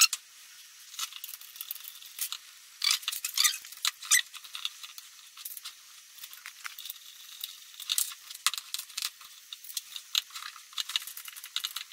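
Thin metal bicycle spokes clicking, ticking and scraping against each other and the rim as a spoke is threaded through the hub and woven under and over the crossing spokes while a wheel is laced. The light metallic clinks come irregularly.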